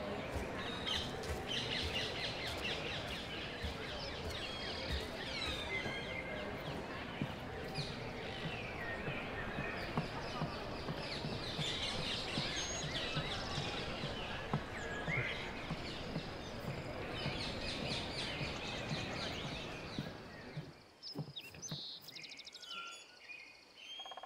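Birds chirping over a dense, steady outdoor background noise. The noise drops away suddenly about 20 seconds in, leaving only a few faint chirps.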